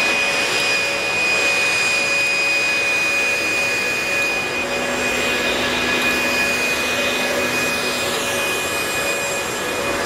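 Corded electric leaf blowers running steadily, a high motor whine over a rush of air, blowing rainwater off wet asphalt.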